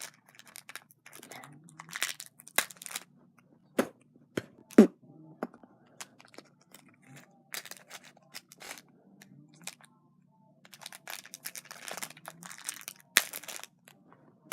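Slime add-ins being handled: crinkling and rustling of plastic packaging, with irregular sharp clicks and crunches, the loudest a single sharp knock about five seconds in.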